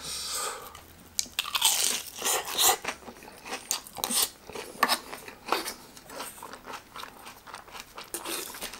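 Loud crunching and chewing of a crispy deep-fried breaded pork cutlet (cheese katsu) eaten with rice: many irregular crisp crunches of the fried crust, strongest in the first half.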